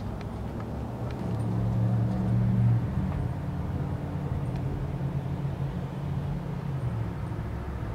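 Low, steady engine rumble from a motor vehicle running nearby. It swells about a second and a half in and drops back to a steady level near the three-second mark.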